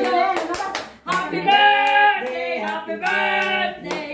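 Several people singing together without accompaniment, holding long notes, with a few hand claps in the first second.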